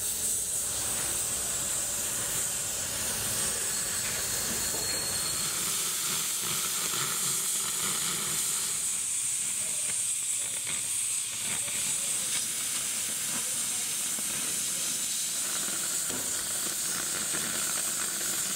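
Oxy-fuel cutting torch hissing steadily as its flame cuts through the steel of an excavator bucket's tooth edge.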